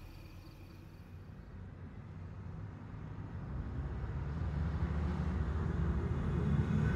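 Low rumble of a car driving, fading in and growing steadily louder. Faint cricket chirping dies away in the first second or two.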